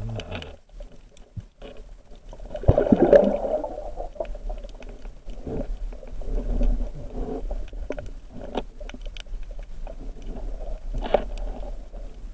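Muffled underwater sound of a spearfishing dive: a steady low hum with scattered clicks and knocks, and a louder rushing burst about three seconds in.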